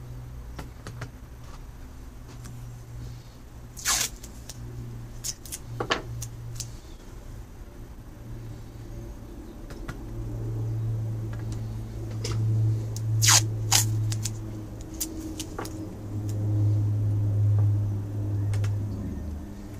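Masking tape pulled off a roll and torn into strips: several short, sharp rips, with a low steady hum underneath.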